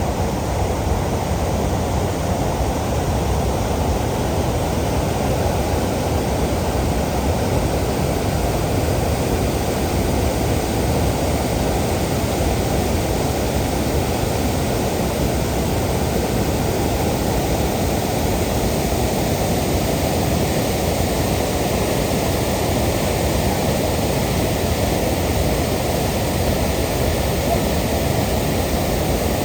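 Steady, loud rushing of a waterfall, an unbroken low-heavy roar of falling water.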